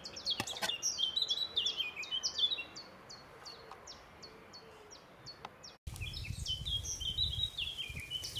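A small songbird singing: a quick run of high stepped notes, then a long series of short, high notes, each sliding down in pitch. After a sudden cut about six seconds in, a low rumbling noise sits under further warbling phrases.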